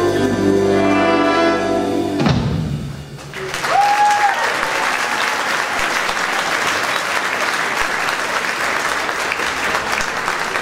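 A high school jazz big band holds its final chord, with brass and saxophones, which cuts off sharply a little over two seconds in. About a second later the audience applauds steadily, with one brief high cheer early in the applause.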